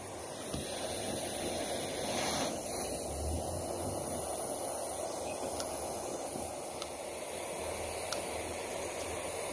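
Gas torch flame hissing steadily, with a few faint ticks.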